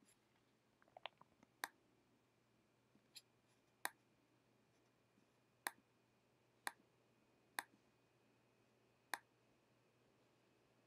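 Computer mouse clicking: a few quick clicks about a second in, then single sharp clicks at irregular intervals of roughly a second or more, against near silence.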